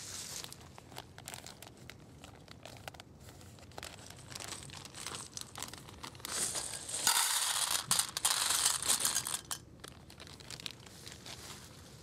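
A plastic bag crinkling as it is handled, then dry egg noodles poured from the bag into a metal camping pot: a dense rattling shower of small clicks for about two and a half seconds past the middle, the loudest part.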